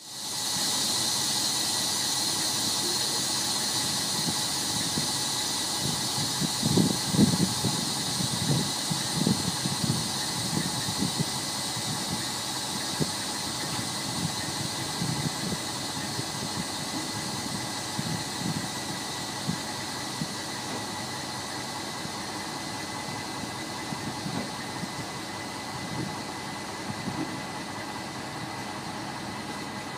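Steady hiss of air from the trailer's air ride suspension system, slowly easing off, over a truck engine idling, with irregular low rumbles in the first half.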